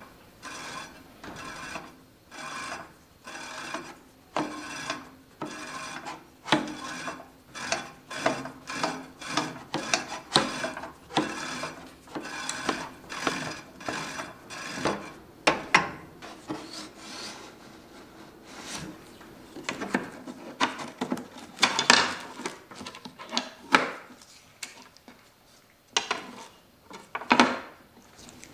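A 10-24 tap turned by hand into a hole in a wooden miter bar, cutting threads with short repeated scraping turns, a little over one a second at first and sparser and more uneven in the second half.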